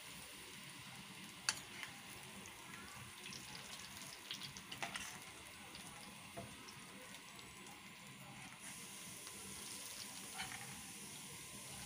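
Faint sizzling of a baghar, onions fried crisp in hot oil, as it is spooned from the frying pan onto a thick pot of khichda, with a few light clicks of the spoon.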